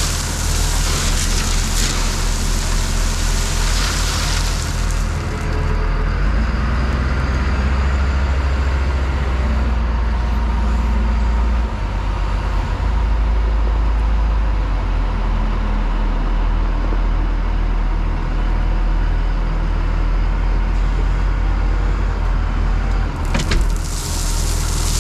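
Heavy work truck's engine running steadily, its note shifting about halfway through, with a loud hiss in the first few seconds and again near the end.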